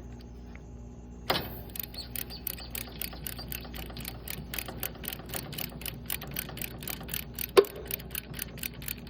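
Ratchet wrench clicking in a steady run of ticks, about four to five a second, as an AC service valve is opened by hand. It starts with a sharp knock about a second in, with another loud knock near the end.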